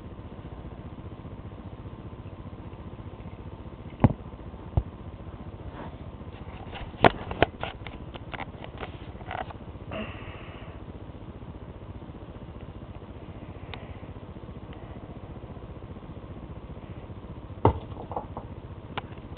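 Plastic K'nex pieces knocking and clattering in sharp clicks: two single knocks, then a quick run of clicks and clatter, and a few more knocks near the end, over a steady low hiss.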